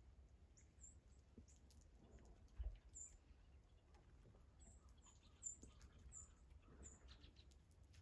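Faint, short high chip calls from small songbirds feeding on the ground, about seven scattered through, with a brief low thump about two and a half seconds in.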